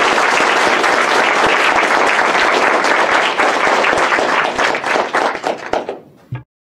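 Audience applauding, a dense patter of many hands clapping that thins out and dies away near the end, followed by a single thump just before the sound cuts off suddenly.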